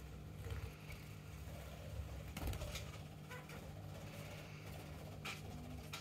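Pet parrots giving a few short, sharp chirps over a steady low hum, about two and a half seconds in, again just after three seconds, and once more near the end.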